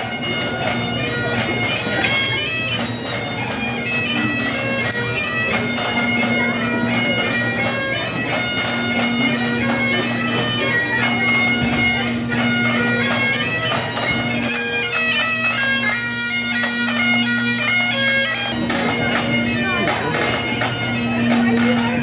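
Bagpipes playing a tune over a steady low drone.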